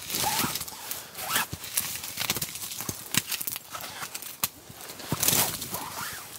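Campfire crackling and popping as a stick pokes and shifts the burning logs, with irregular wooden knocks and scrapes.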